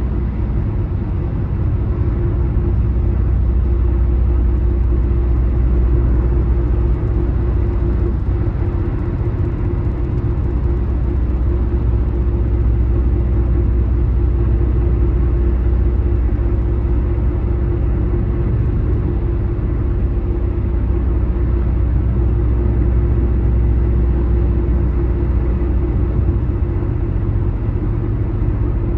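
A car cruising on an interstate highway: a steady low rumble of tyres on the road and the engine running, with no changes.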